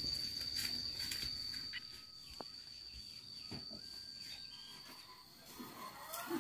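An insect, most likely a cricket, trilling steadily on one high note, cutting off shortly before the end. A few faint clicks and bird chirps come near the end.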